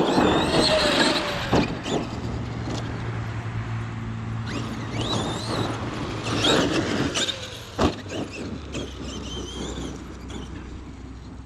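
Traxxas X-Maxx 8S RC monster truck driven hard, its brushless motor whining up and down in pitch with the throttle and the tyres churning dirt. There are two sharp knocks, one about one and a half seconds in and one near eight seconds in.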